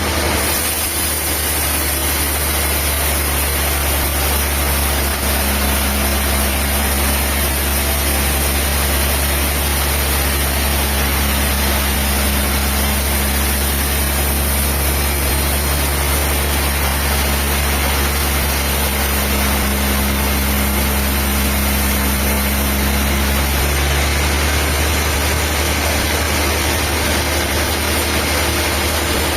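Diesel engine of the sawmill machinery running steadily at an even speed; a higher note in its sound drops away about 23 seconds in.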